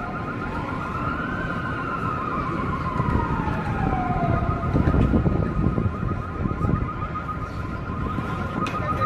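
A siren wailing, its pitch rising and then falling slowly over about four seconds, over a steady, fast-pulsing alarm tone and street noise.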